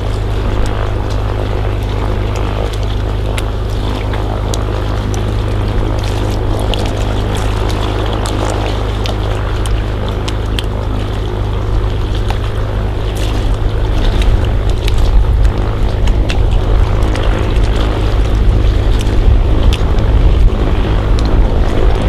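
Single-engine floatplane's engine and propeller running as it taxis on the water, a steady drone that grows louder about two-thirds of the way in.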